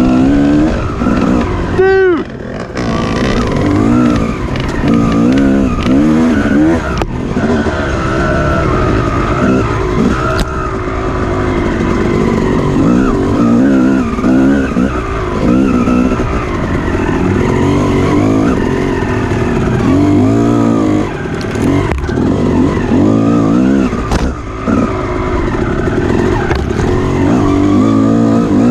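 Off-road dirt bike engine revving hard and easing off over and over, its pitch rising and falling every second or two as the throttle is worked on a rough trail.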